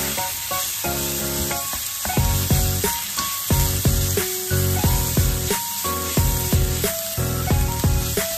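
Ground beef sizzling in a dry nonstick pan over high heat as a spatula breaks it up and stirs it, under background music: a melody of short notes, joined about two seconds in by a louder bass line.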